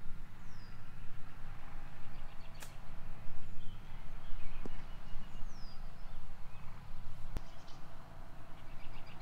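Wind rumbling on the microphone with birds chirping, and two sharp clicks, about two and a half seconds in and again about seven seconds in, from golf clubs striking balls on short chip shots.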